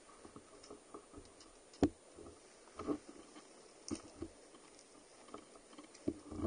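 Faint, irregular knocks and clatter, the loudest about two seconds in and several weaker ones after it, with no steady engine sound.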